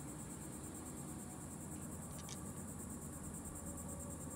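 Steady, high-pitched insect trill pulsing evenly, over a low steady hum, with a couple of faint clicks about two seconds in.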